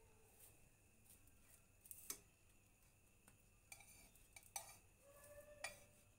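A spatula clicking and scraping faintly against a frying pan as a thin crepe is rolled up. There are a few separate clicks, the sharpest about two seconds in and two more near the end.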